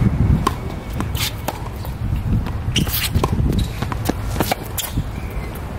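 Tennis rally on a hard court: a serve and then a rally, with sharp pops of the racket strings meeting the ball, ball bounces, and the players' shoes scuffing and shuffling on the court. A steady low rumble runs underneath.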